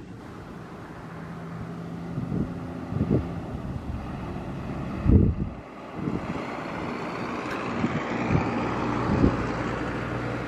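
Diesel engines of tour coaches running as buses pull away through a toll gate, the drone slowly growing louder. A few low thumps of wind on the microphone, the strongest about halfway through.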